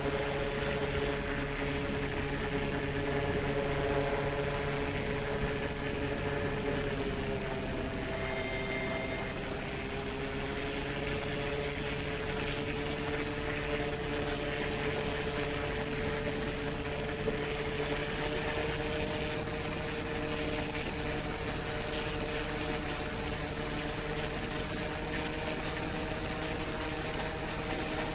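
Paramotor engine and propeller running steadily in flight, heard from the pilot's seat. Its note drops a little about eight seconds in, then climbs back and holds.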